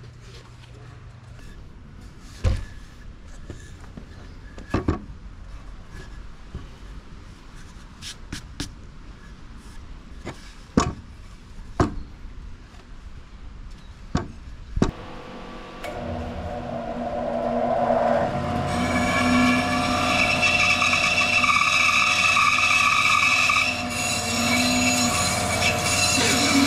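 A series of sharp wooden knocks as boards are handled and set down on a wooden workbench. About halfway through, a band saw starts up, building over a few seconds into a steady running sound with a high whine.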